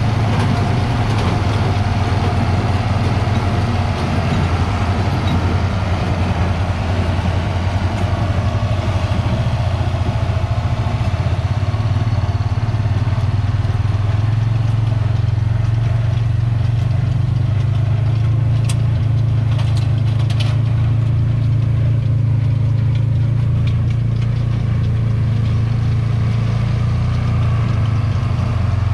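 John Deere 4430 tractor's six-cylinder diesel engine running steadily under load while powering a John Deere 328 square baler.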